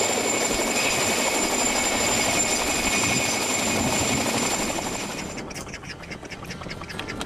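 A steady engine drone with a high, even whine, which cuts off abruptly about five seconds in. After it come scattered clicks and short calls like waterfowl.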